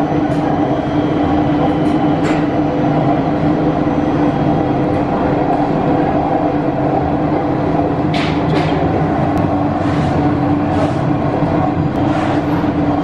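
Commercial planetary dough mixer running with a steady mechanical hum as it works stiff biscuit dough. A few short scrapes and knocks come in the second half.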